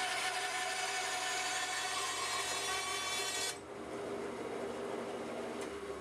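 Bandsaw blade ripping lengthwise through a log fed on a milling sled, a loud steady rasping cut. About three and a half seconds in the cutting noise stops abruptly as the blade comes out of the wood, leaving the bandsaw running free with a lower hum.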